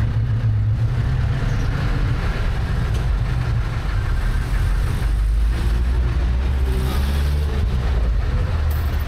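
Jeepney's diesel engine idling with a steady low rumble, heard from inside the open passenger cabin.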